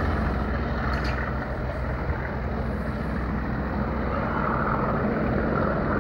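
Class 37 diesel locomotives' English Electric V12 engines heard as the train moves away down the line: a steady, low engine drone with a rumble.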